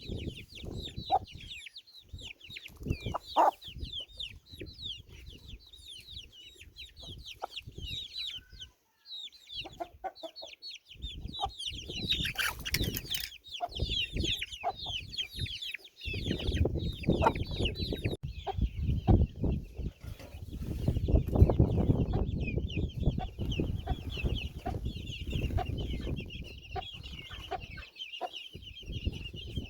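A brood of young chicks peeping constantly in short, high, falling chirps, with scattered clicks. From about halfway through, a louder low rumbling noise runs underneath for some ten seconds.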